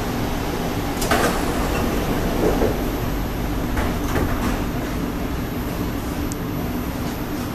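Kawasaki Nippon Sharyo C751B metro train's sliding passenger doors closing, with a sharp knock as they shut about a second in and a few lighter knocks a few seconds later, over the steady hum of the train car.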